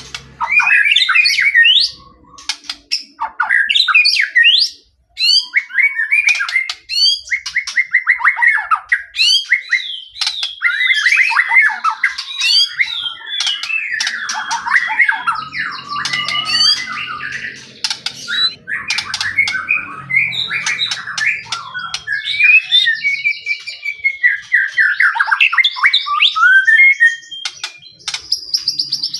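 White-rumped shama singing in full, non-stop 'gacor' song: a fast, varied string of whistles, trills, sharp clicking notes and harsh chattering phrases, broken only by brief pauses.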